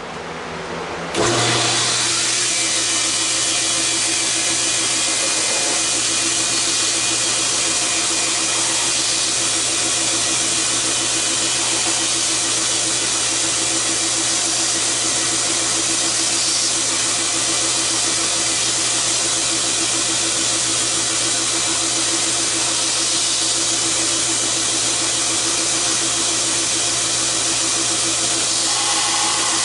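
Belt grinder running steadily while the edges of a Kydex thermoplastic pouch are ground round against the abrasive belt: a loud, even hiss over a constant low hum that starts suddenly about a second in.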